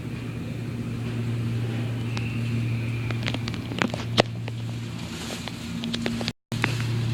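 A steady low machine hum, with scattered sharp clicks and a louder knock about four seconds in. The sound cuts out completely for a moment near the end.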